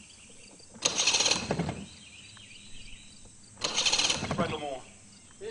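Outboard boat motor's recoil starter pulled twice, each pull about a second of rattling cord and the engine turning over without catching, after a flammable spray has been put in as makeshift starting ether.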